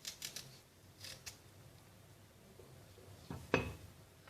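Kitchen handling sounds of fresh ginger being worked for peeling: a few short, faint scratchy scrapes, then a single knock near the end.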